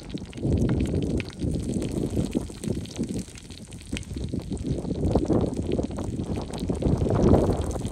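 Wind buffeting the microphone in uneven gusts, strongest about two thirds of the way in, with faint scattered crackles over it.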